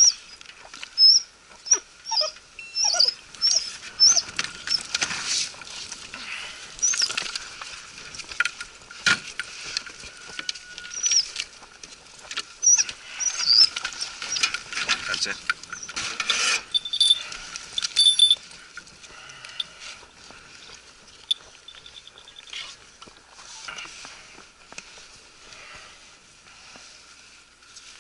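Hunting dogs squealing and whining excitedly in their plywood kennel boxes, with short high squeaks in quick succession over the first half. Metal latches and wooden box doors clatter and paws scrabble on the boards as the boxes are opened, then it quietens.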